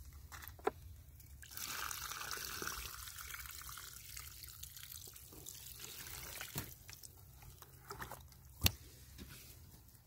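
Water sloshing and dripping in a bucket holding live catfish, with a hissy wash of splashing for a couple of seconds early on and a few sharp knocks, the loudest near the end.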